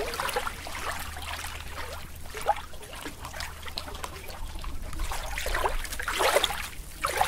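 Running water trickling and splashing, with a steady low hum underneath.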